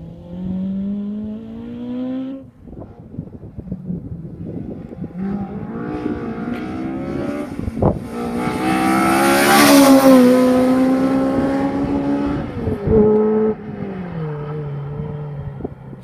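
Ford Escort Mk2 RS rally car driven hard. The engine note rises, drops at a gear change about two seconds in, then climbs again to its loudest about ten seconds in as the car comes close. After that the pitch falls, with a brief rev near thirteen seconds, before it settles to a lower, steadier note near the end.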